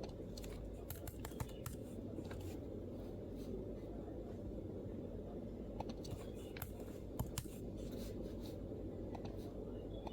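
MacBook keyboard keystrokes: two short runs of light typing with a pause of about three seconds between them, over a steady low background hum.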